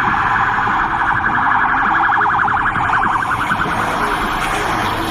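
Tram passing close by, with a shrill, fast-pulsing trill from the tram that fades out about three and a half seconds in, over the steady rumble of its running on the rails.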